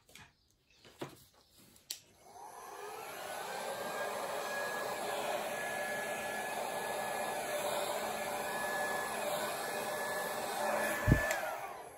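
Handheld hair dryer switched on about two seconds in, its whine rising as the motor spins up, then running steadily, blowing air across wet acrylic paint. A thump comes just before it is switched off near the end, and its whine falls away.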